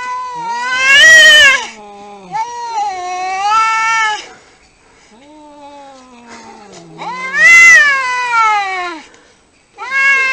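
Cats yowling and caterwauling at each other in a fight: about four long, loud, wavering wails with a lower drawn-out growl underneath and between them.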